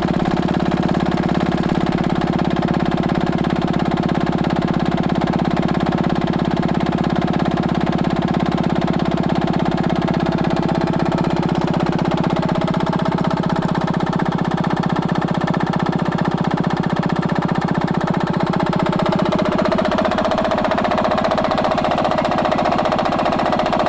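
Stuart Turner H1 stationary engine running unloaded with a steady, rapid firing beat. It runs without a load, which the owner says it still needs to level it out. About twenty seconds in, the sound shifts towards a higher-pitched ring as the low end drops back.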